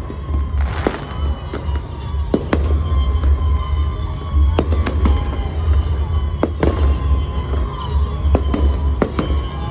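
Aerial fireworks going off overhead: a string of irregular sharp bangs and crackles over a deep, steady low rumble.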